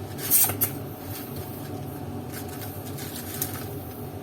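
Handheld paint spray gun giving two short hissing bursts about half a second in, then a steady low hum with a few faint handling clicks.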